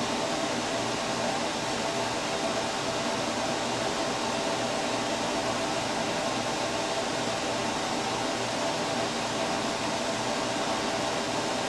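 A fan running steadily: an even hiss with a few faint steady hums under it, unchanging throughout.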